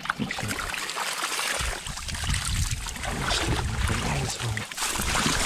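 Water sloshing and splashing, with irregular knocks and rustles.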